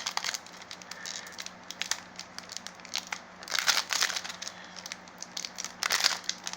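Foil wrapper of a Pokémon card booster pack crinkling and crackling as it is handled, with louder bursts of crinkling about halfway through and again near the end.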